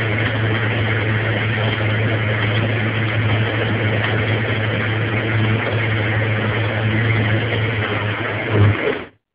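Countertop blender motor running steadily, blending a shake with ice and pineapple chunks. It cuts off suddenly about nine seconds in.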